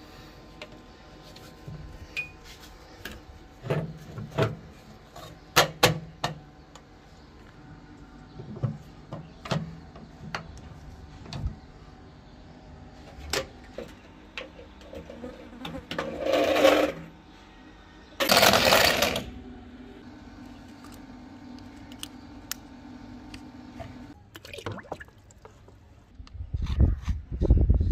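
Sharp metal clicks and knocks from a rusted light machine gun's parts being worked loose and taken apart by hand. Two short bursts of hiss come about midway, and a low rumble starts near the end.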